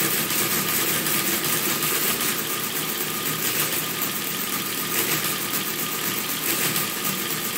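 A Friden ACG electromechanical calculator running continuously after its negative register transfer is engaged: a steady motor sound with a fast, even mechanical clatter. The transfer misbehaves and leaves garbage numbers in the registers.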